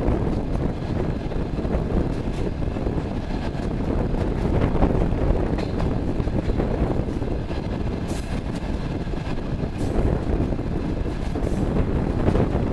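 Passenger train carriage running at speed, heard from an open window: a steady rumble of wheels on rail with wind on the microphone and a few faint clicks from the track.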